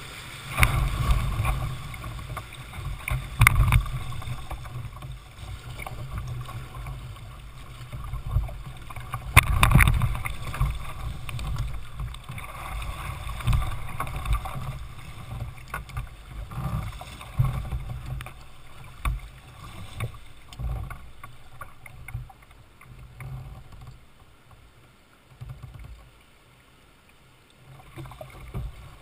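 Whitewater rushing and splashing against the hull of a Jackson Coosa sit-on-top kayak running a rapid, with several loud splashes hitting the boat. It quietens after about twenty seconds as the kayak reaches flat water.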